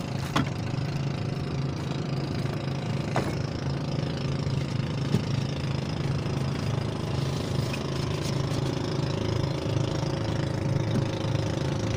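Small engine of a wooden outrigger fishing boat running steadily in a low, even hum, with a light knock about half a second in and another about three seconds in.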